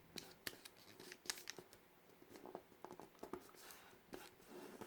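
Square of origami paper being folded and creased by hand, giving faint, scattered small crinkles and crackles.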